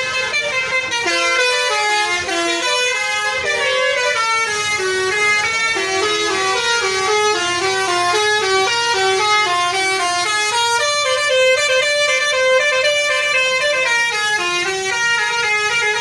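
Telolet multi-tone air horn on a PO Nagita Transport bus playing a continuous tune, its notes stepping up and down several times a second without a break.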